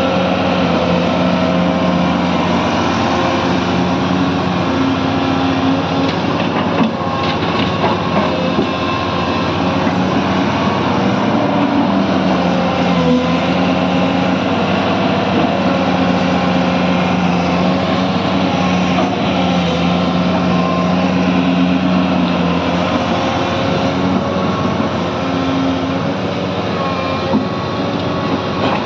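Excavator's diesel engine running steadily under working load, its note shifting slightly up and down as the load changes, with a few short knocks.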